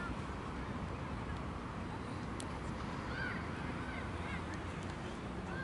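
Football pitch ambience: a steady low rumble with faint, distant shouts and calls from players scattered through it, and one sharp click about two seconds in.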